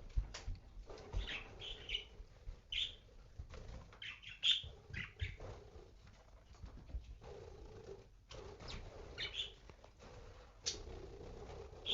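Pet budgerigars giving short, scattered chirps, with small knocks and rustles in between.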